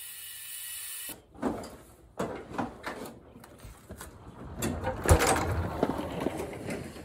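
Irregular clunks, knocks and rattles of a Toro Wheel Horse lawn tractor being rolled out of a shed with its engine off, the wheels bumping over the door threshold onto a concrete ramp; the loudest thump is about five seconds in. A steady hiss in the first second comes before the knocking.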